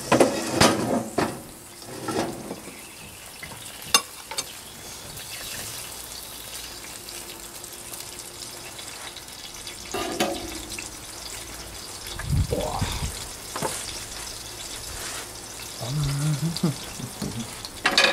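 Steady hiss with scattered sharp clinks and knocks of cutlery on plates as food is handled at a table.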